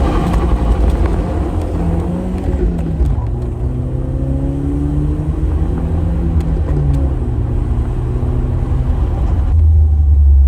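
Car engine revved hard under heavy throttle. Its pitch climbs, is held high with a drop or two as it changes speed, then falls to a deep, loud rumble near the end.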